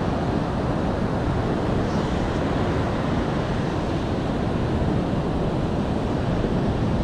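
Steady rushing of surf breaking on a beach, mixed with wind buffeting the microphone.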